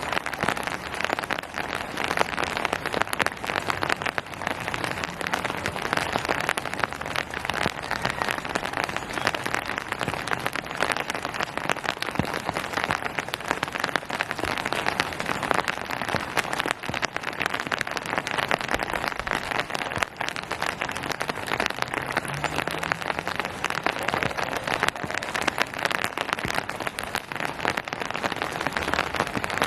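Steady rain falling on surfaces, a dense pattering of drops.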